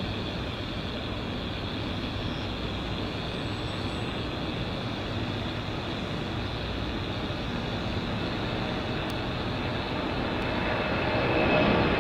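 FedEx Airbus A300 twin-engine jet at takeoff power during its takeoff roll and lift-off: a steady distant rushing noise with a thin high whine. It grows louder over the last couple of seconds as the jet climbs away.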